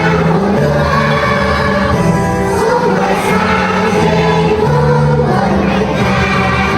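A large group of schoolchildren singing in chorus with music, in held, stepping notes.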